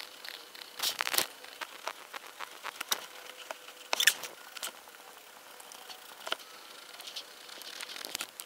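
Soft, irregular scratching and rustling of a fabric marker being drawn over a cotton T-shirt, with scattered small clicks as the hands shift the cloth.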